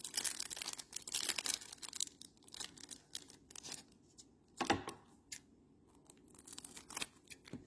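Plastic wrapper of a trading card pack being torn open, with dense crinkling for about two seconds, then scattered crinkles of the wrapper and cards being handled, and one louder rustle a little under five seconds in.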